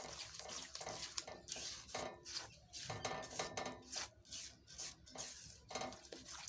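Silicone spatula beating thick besan barfi mixture in a metal pot, scraping against the sides in a quick, uneven run of wet strokes, about three a second.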